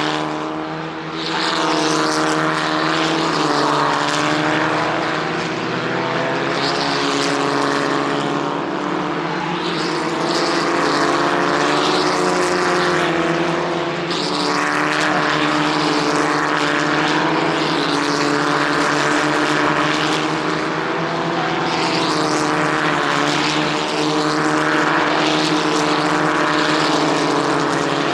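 Several race car engines running at a steady low speed, a layered drone of engine notes that hardly rises or falls.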